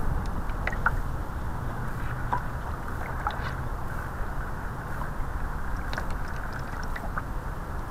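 Water rushing and lapping along the hull of an RC model sailboat under way, with wind buffeting the microphone of the camera mounted on its deck. Scattered short ticks sound over the steady noise.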